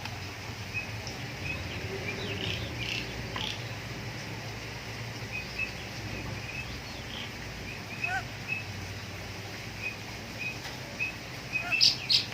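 Bird chirping: short, high chirps repeated every second or so, with a quick run of louder calls near the end.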